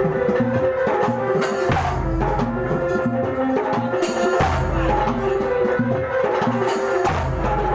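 Kuntulan ensemble music: hand-struck frame drums and deep drum strokes keeping a driving rhythm under a steady melodic line of held, stepping notes.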